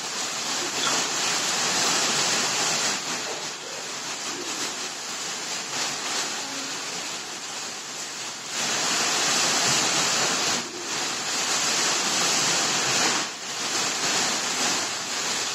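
A steady, even rushing noise like running water or surf, dipping briefly a few times.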